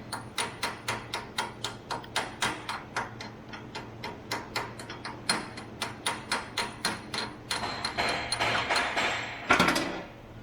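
Metal chipping hammer knocking slag off a stick weld bead, quick even strikes about three to four a second. Near the end the strikes give way to a brief rough scraping hiss and one loud burst.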